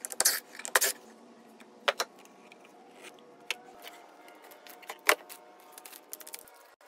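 Sharp wooden knocks and clatters as the particle-board panels of a mold form box are pulled off and handled, loudest twice in the first second and again about five seconds in.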